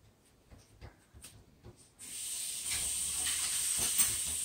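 A few faint clicks, then about two seconds in a steady hiss starts suddenly and keeps on.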